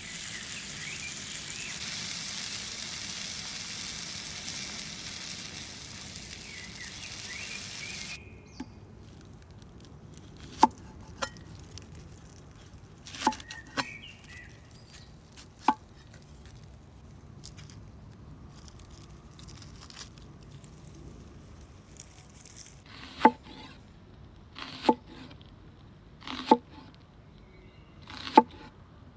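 Food sizzling as it fries on a hot cooking surface, a steady hiss that cuts off abruptly about eight seconds in. After that come a handful of sharp, separate knocks at irregular intervals.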